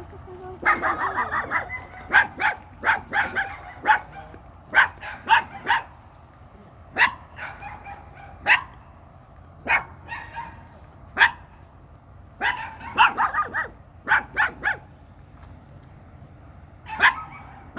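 A dog barking repeatedly, in quick runs of sharp barks separated by short pauses.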